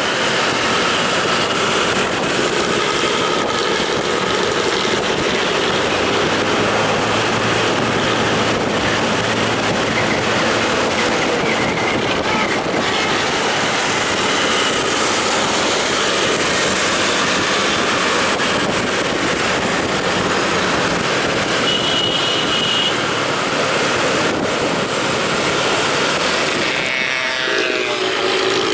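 Intercity bus engine running with a loud, rasping 'ngorok' (snoring) exhaust, a continuous heavy mechanical noise. The pitch shifts near the end.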